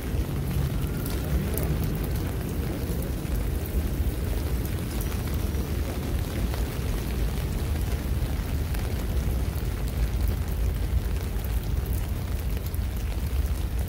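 Rain falling on a wet city sidewalk and street, under a heavy, steady low rumble that is the loudest part of the sound.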